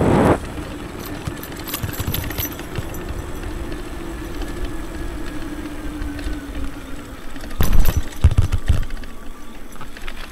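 Electric motor of a homemade 72-volt downhill e-bike whining faintly and steadily, its pitch slowly dropping as the bike slows, over wind rushing on the microphone and tyre noise on the path. A few heavy thuds come about eight seconds in, the loudest moment.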